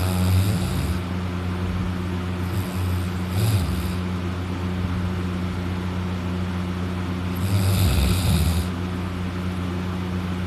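A man snoring loudly while asleep on his back with his mouth open. Three snoring breaths come at the start, about three seconds in, and near eight seconds, over a steady low hum.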